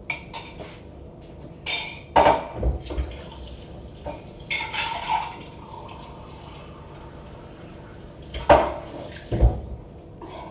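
Kitchen clatter: a glass, spoon and dishes clinking and knocking on a counter, then two heavy thumps about a second apart near the end.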